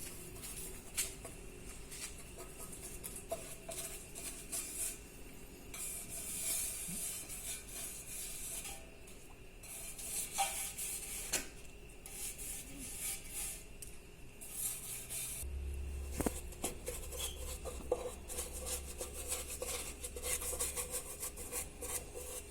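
Scrubbing and rubbing on a washing machine's spin basket, with light clinks, as it is cleaned of crusted deposits. A low steady hum comes in about two-thirds of the way through.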